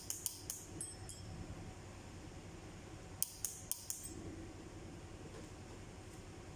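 Light metallic clicks from a hand wrench working the rocker-arm adjusting screws of a Perkins 2806C diesel's valve gear while the tappet clearance is set: a few clicks at the start and a second group of about four quick clicks around three seconds in.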